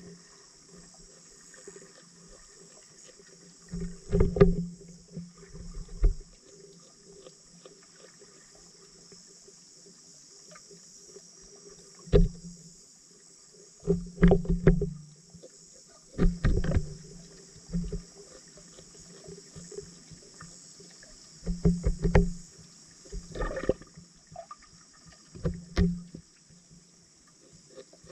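Underwater audio from a submerged camera: a steady high hiss, broken by irregular clusters of dull knocks and thumps, the loudest about 4 s in and between about 14 and 17 s.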